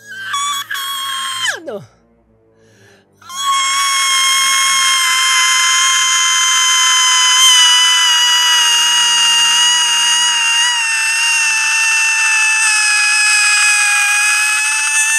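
A man's shrill, high-pitched scream: a short one of about two seconds that drops steeply in pitch at its end, then after a brief pause one very long held screech that slowly sinks a little in pitch.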